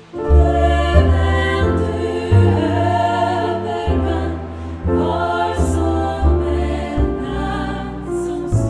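Female vocal group singing in close harmony, with piano accompaniment carrying steady bass notes that change about once a second.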